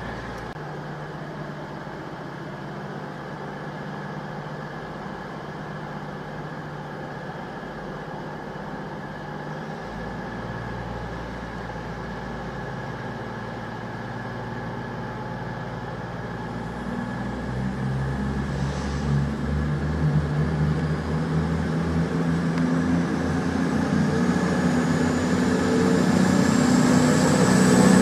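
CrossCountry Voyager diesel-electric multiple unit, its underfloor diesel engines running steadily and then revving up about ten seconds in as it pulls away. It grows steadily louder as it accelerates toward and past, with a rising whine in the last several seconds.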